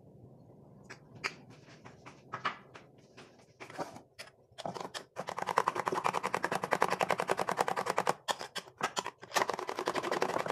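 Spoon beating a mixture briskly in a bowl, clicking against the bowl's side. A few scattered taps come first, then a fast, steady run of clicks from about four and a half seconds in, with a brief pause near eight seconds.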